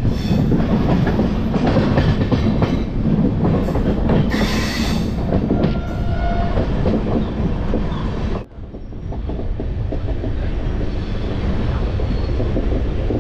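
Jaipur SF Express passenger train running along the line, heard from aboard: a steady rumble of the coach with wheels clattering over the rail joints. The noise drops away suddenly and briefly about eight seconds in.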